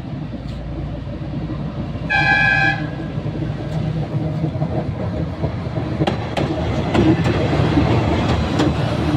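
TU2 narrow-gauge diesel locomotive sounds one short horn toot about two seconds in. Its diesel engine runs with a low rumble that grows louder as it comes past. From about six seconds in its wheels click over the rail joints.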